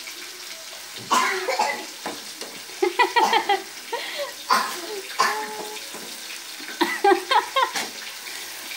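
Wooden spatula scraping and stirring sambal in a frying pan, in a run of short irregular scraping strokes over a sizzle from the frying.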